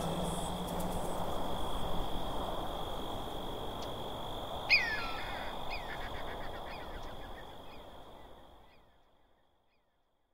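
A steady rushing noise with a thin high tone over it, then, about halfway through, one loud bird call that falls in pitch, followed by a string of shorter falling calls about two a second; it all fades out to silence near the end.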